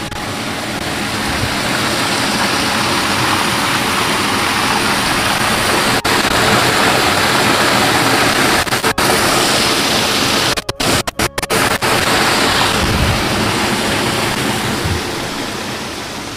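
Loud, steady rushing noise that swells over the first few seconds. It cuts out briefly several times about two thirds of the way through, then fades toward the end.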